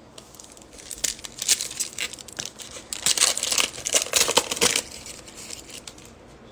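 A Bowman baseball card pack's foil wrapper being torn open by hand, crinkling and ripping in a run of sharp rustles. It is loudest from about three seconds to four and a half seconds in, then dies down.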